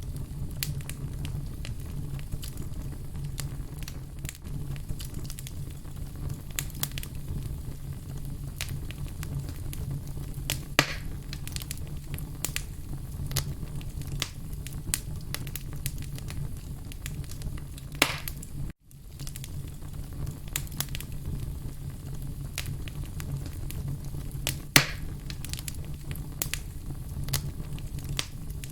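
Log fire burning in a fireplace: a steady low rumble under irregular crackles and pops of burning wood, with a few sharper pops about a third of the way in, past halfway and near the end. The sound cuts out for an instant about two-thirds through.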